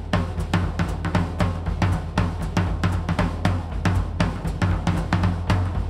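Big band style drum kit playing a steady, even rhythm: sharp drum strokes over a booming low bass drum and tom sound. The drums are tuned medium-high with coated heads, and small splash cymbals serve as hi-hats.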